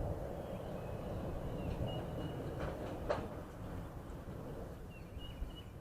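Low, rolling rumble of distant thunder, with a short click about three seconds in and a few faint high chirps.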